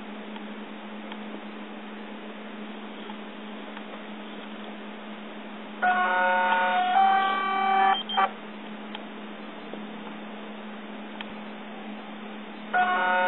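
Yongnuo YN568EX speedlite's zoom motor running in two bursts: one of about two seconds around six seconds in, and another starting near the end. Each is a buzz at several pitches that shift partway through. A faint steady hum lies underneath.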